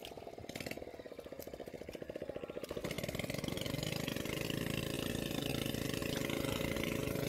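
A small engine running steadily with a rapid, even putter, becoming louder and steadier about three seconds in.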